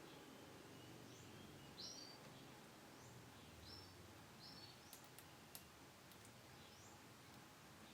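Faint canary calls: short high chirps repeated about once a second, with a few sharp clicks about five seconds in.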